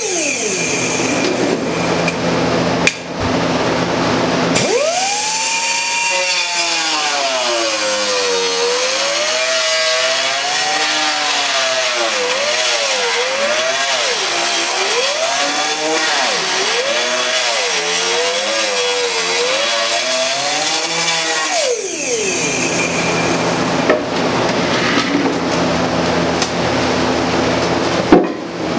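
Electric angle grinder with a cutoff wheel cutting through a fiberglass boat seat base, a steady gritty cutting noise. For most of the middle stretch its whine wavers up and down as the wheel bites and eases, with a brief drop about three seconds in and again near the end.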